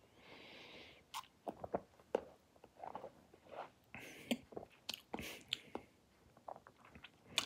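Faint mouth sounds of a man drinking and tasting beer from a bottle: swallowing and lip smacks heard as scattered soft clicks, with two short hisses, one about half a second in and one about four seconds in.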